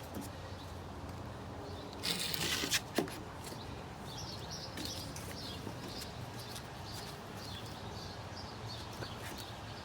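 Wooden window frame pieces being worked apart by hand: a brief scraping rub about two seconds in, ending in a single knock, over a steady low hum. Birds chirp faintly in the background.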